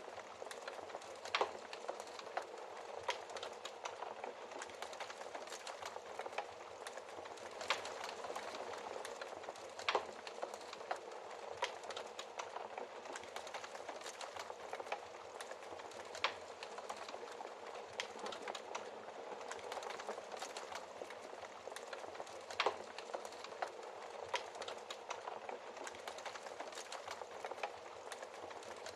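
Wood fire in a fireplace crackling: a steady hiss with small crackles and a handful of louder sharp pops spread through it.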